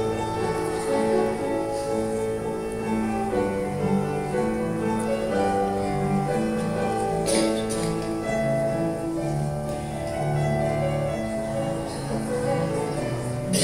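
Slow music led by piano, with long held notes.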